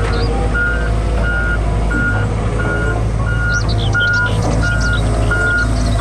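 Volvo wheeled excavator driving, its diesel engine running steadily while its travel alarm beeps repeatedly at an even pace, about three beeps every two seconds.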